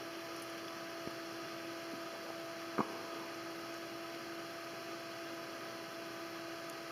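Steady hum with a hiss underneath, and one sharp click about three seconds in. The clipping-detector tweeter gives no sound.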